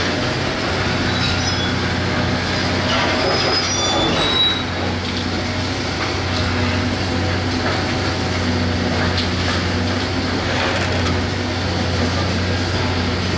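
Hitachi 670 LCH excavator's diesel engine running steadily at working revs, with short high metallic squeals between about one and four seconds in and scattered knocks and cracks of demolition.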